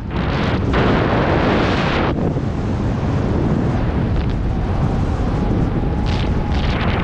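Rushing wind of skydiving freefall buffeting the microphone in a loud, unbroken roar, heaviest in the first couple of seconds.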